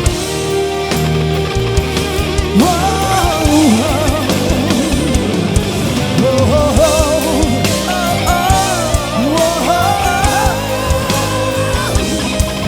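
Live rock band playing an instrumental break, with a lead electric guitar line full of bends, slides and vibrato coming in about two and a half seconds in over drums and bass.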